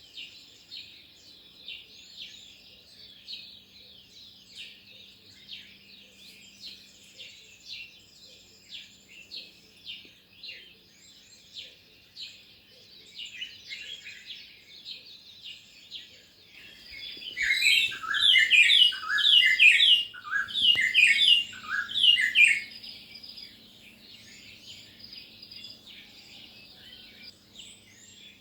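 Wild birds chirping continuously in quick short notes. Past the middle, a much louder flurry of rapid chirps from a nearer bird lasts several seconds, then fades back to the steady background chirping.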